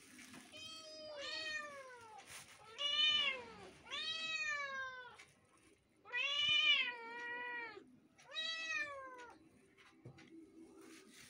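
Two kittens meowing, about six drawn-out meows that rise and then fall in pitch, some overlapping one another. The meows come in the first nine seconds or so.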